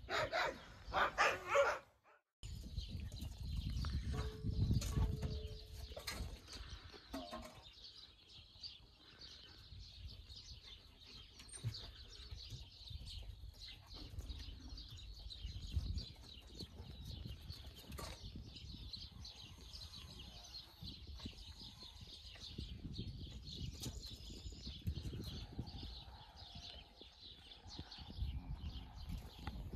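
Wolf-dog puppies squealing in a short burst, about two seconds long. Then faint, steady high chirping, with gusts of wind rumbling on the microphone.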